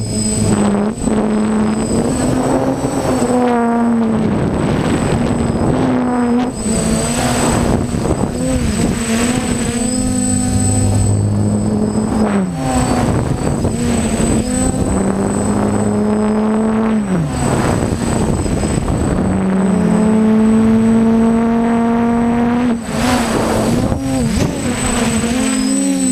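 DJI F550 hexacopter's brushless motors and propellers whirring, heard on board, the pitch sliding up and down again and again as the throttle changes in fast flight. Rushing air comes and goes over it, and a steady high whine runs underneath throughout.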